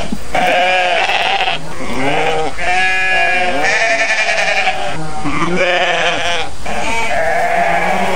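A herd of goats bleating, many overlapping calls one after another.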